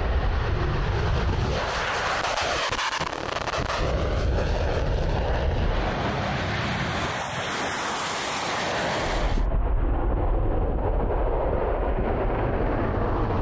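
F-16 Fighting Falcon jet engine at takeoff power, a loud, rushing rumble with a deep low end. The sound changes abruptly about a second and a half in and again about nine and a half seconds in.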